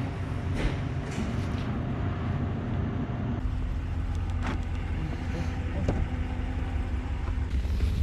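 Ram 1500 pickup driving on the highway: a steady low rumble of engine and tyres, getting heavier about three and a half seconds in.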